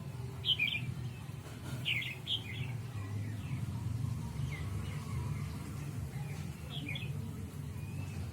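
Birds chirping in short clusters of quick calls, a handful of times, over a steady low rumble.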